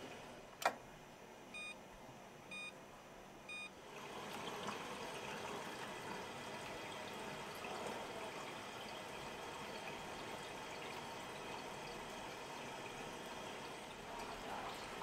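A click, then three short electronic beeps one second apart from a darkroom enlarger timer counting the exposure. From about four seconds in, water runs steadily in a darkroom sink.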